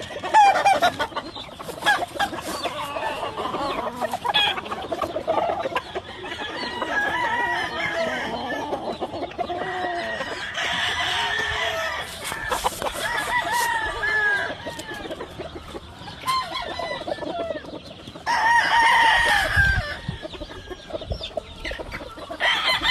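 A flock of gamefowl: several roosters crowing over and across one another amid clucking, with a louder burst of calls about eighteen seconds in.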